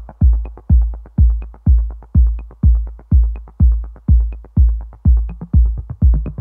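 Background music: a drum-machine beat, a deep kick about twice a second with a light high tick about once a second.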